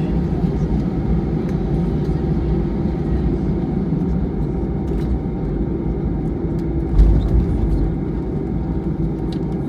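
Airbus A320 cabin noise: the steady drone of the jet engines and airflow heard from inside the cabin, with a low thump about seven seconds in.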